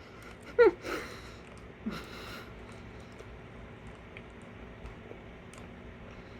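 Person eating a chili cheese dog in a hurry: a short voiced grunt about half a second in, two breathy sniffs or exhales soon after, then faint chewing and mouth clicks.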